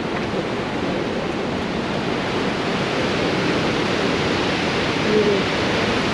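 Waterfall on the Yellowstone River heard from close above: a steady, loud rush of falling and churning white water.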